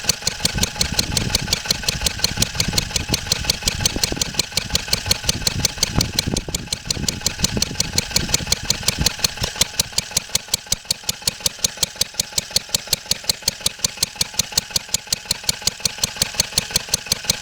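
1954 Wolseley WD8 stationary engine running off load with a quick, even beat of firing strokes and no misfires.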